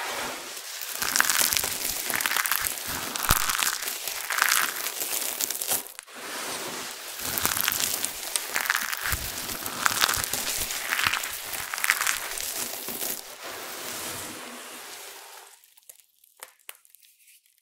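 Hands scooping, squeezing and sifting a heap of dry, brittle crumbs, giving a continuous crisp crunching and crinkling that swells with each handful. It fades out near the end.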